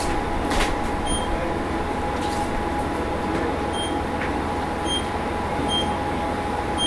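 Steady drone inside a Matsuura Railway MR-600 diesel railcar, with no rail clatter. From about a second in, a short high beep repeats roughly once a second.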